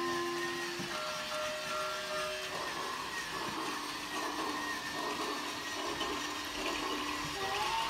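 Battery-powered toy Christmas train running on its plastic track: a steady motor-and-wheel whir, growing a little fuller as it comes closer, under a simple electronic melody of single held notes from the train's sound chip.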